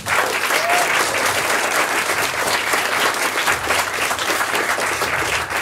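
Audience applause, a dense steady clatter of many hands clapping that breaks out all at once and keeps going.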